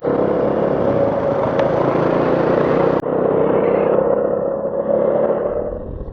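Motorcycle riding along the road, its engine holding a steady note under heavy wind rush on the microphone, which fades out near the end.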